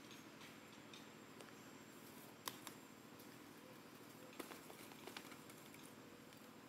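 Near silence with a few scattered clicks and ticks, the sharpest about two and a half seconds in.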